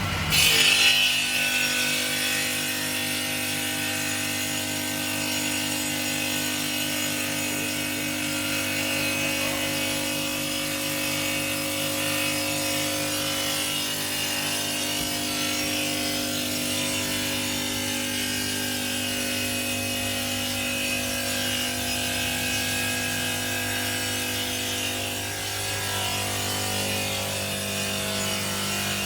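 Semi-automatic granite cutting machine's electric saw, a 7.5 kW motor driving a circular blade, running steadily as it cuts stone. The sound is a steady whine with a hiss over it, loudest briefly about half a second in.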